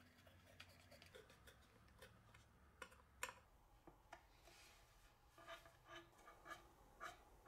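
Faint, scattered clicks and scraping of a hand screwdriver turning a small screw into a metal plate on a wooden board, with a couple of sharper clicks about three seconds in.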